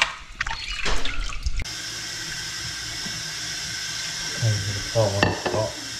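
Kitchen tap running steadily into a stainless steel sink, starting abruptly a little under two seconds in. Before it comes in there are a few brief knocks and clatter.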